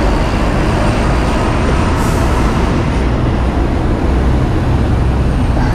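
Steady low rumble of wind on a handlebar-mounted camera's microphone as the bike rolls along, mixed with traffic noise from a busy road; a brief hiss about two seconds in.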